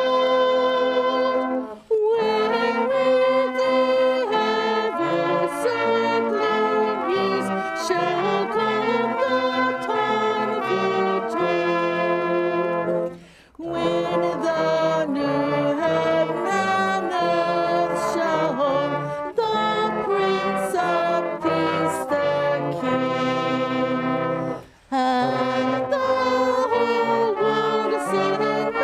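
Brass band playing a slow carol in long sustained phrases, with short breaks between lines about two, thirteen and twenty-five seconds in.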